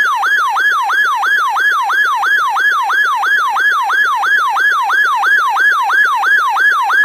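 Electronic emergency alert siren tone: a loud pitch sweeping down from high to low and snapping back up, about three times a second, signalling an emergency warning.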